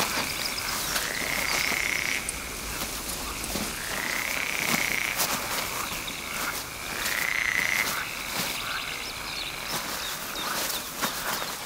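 Frogs calling: a trilled call about a second long, repeating every two to three seconds, over rustling and crackling from an otter rubbing itself in dry grass.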